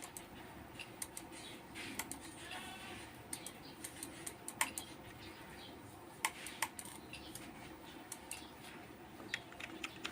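Irregular clicks of a computer keyboard and mouse being operated, with a brief bleat-like call about two and a half seconds in.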